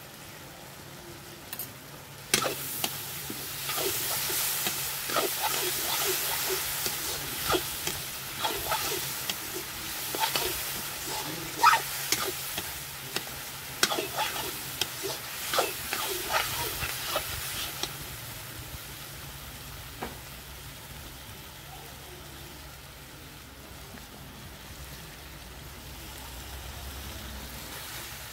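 Onions and capsicum frying in a hot iron kadai, sizzling loudly from about two seconds in, while a metal ladle scrapes and knocks against the pan. The clicks stop and the sizzle quietens over the second half.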